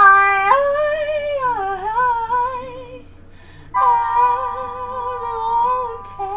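A woman's singing voice holding a long note on the word "I", which slides down in pitch after about a second and a half. After a short break she holds a second long, steady note.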